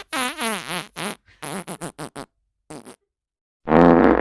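A run of comedic meme sound effects: a wavering, wobbling tone for about a second, then a quick string of short sputtering bursts, and a louder buzzy tone near the end.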